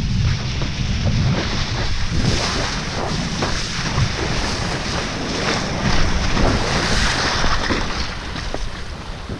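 Wind buffeting the microphone in a steady low rumble, over the hiss and repeated slaps and splashes of a kiteboard skimming across choppy water.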